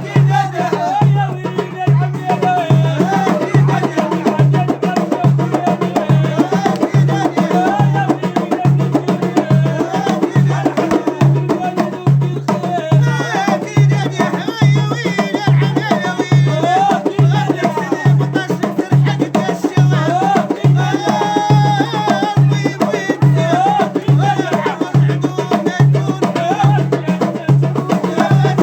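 Moroccan aita folk music: a steady, evenly repeating low drum beat under a wavering melodic line, with percussion clicks on top.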